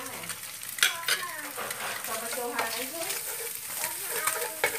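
Wooden spatula stirring and scraping scrambled egg and diced meat around a hot nonstick frying pan while the food sizzles, with a sharper knock of the spatula against the pan just under a second in.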